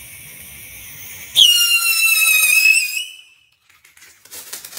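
Small fireworks fixed to the rotor tips of a toy helicopter hissing as they spark, then a loud firework whistle about a second and a half in, its pitch sliding slightly down, which stops after a second and a half. A few sharp crackles near the end.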